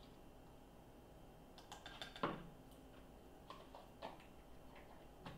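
Light, scattered clicks and taps of a measuring spoon and a baking-powder can against a ceramic mug and tabletop, with one sharper tap about two seconds in.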